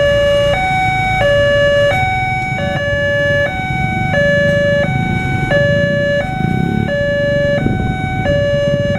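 Railway level-crossing warning siren sounding its electronic two-tone alarm, flipping between a higher and a lower tone about every two-thirds of a second. A steady low rumble runs underneath.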